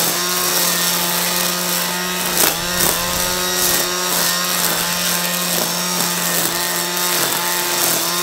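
Milwaukee M18 cordless string trimmer running at speed, its line cutting grass. It is a steady electric hum over a hiss, with the pitch dipping briefly a few times under load and two sharp clicks about two and a half seconds in.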